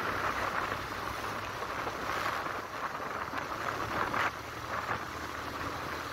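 Wind rushing over the microphone of a moving motorcycle, with the engine's steady low drone underneath. A brief louder swell comes about four seconds in.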